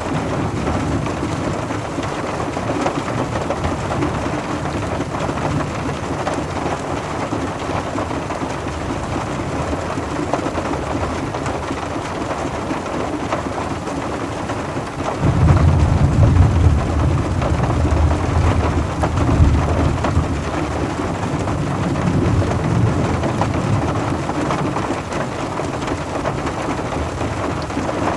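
Steady rain falling on a car, with a deep roll of thunder breaking in suddenly about halfway through and rumbling on, slowly easing.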